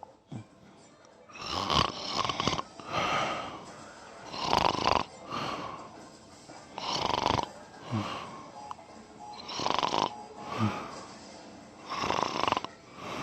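A person snoring in a steady rhythm: about five breaths, each a loud snore followed by a shorter, softer one, roughly every two and a half seconds, starting about a second and a half in.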